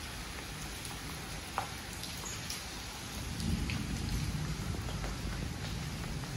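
Steady rain falling, with scattered drips ticking and a low rumble that swells about halfway through.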